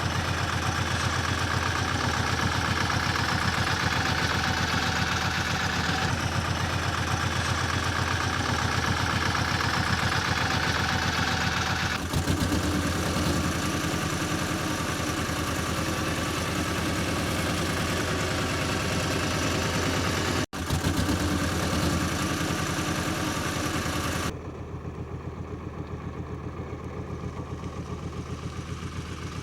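Road roller's engine running steadily. The sound changes abruptly several times and is quieter near the end.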